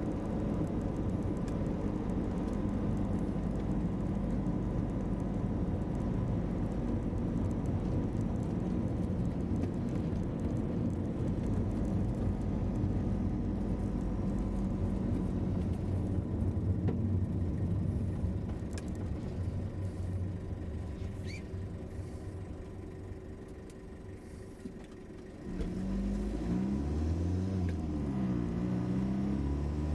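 Engine and road rumble heard inside a moving vehicle's cabin. The rumble fades gradually for several seconds. Near the end it comes back louder, with the engine's pitch sliding up and down as it picks up speed.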